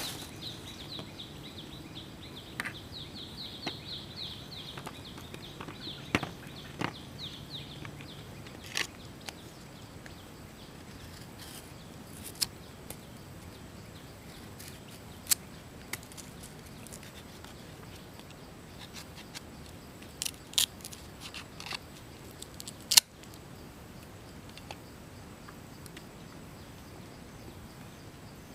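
Small kitchen knife cutting firm guava fruit: scattered sharp clicks and cuts with pauses between them. A high, rapid chirping runs through the first eight seconds or so.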